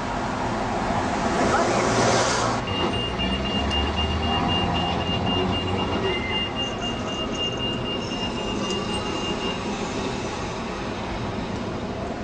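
Vintage electric tram running on the Blackpool promenade line. Its rolling rush builds to a peak about two seconds in, then drops, and a steady high-pitched tone follows for about seven seconds over a low rumble.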